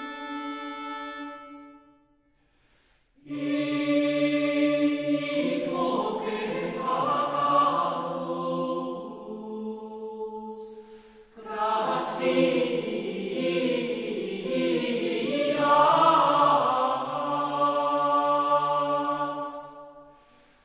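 Background music: a choir singing slow, held chords in long phrases. One phrase fades out and there is a short silence about two seconds in; two more long phrases follow, split by a brief dip about halfway through.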